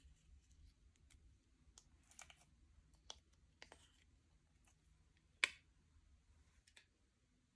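Slime being worked by hand, giving scattered small sticky clicks and crackles, with one sharper, louder pop about five and a half seconds in.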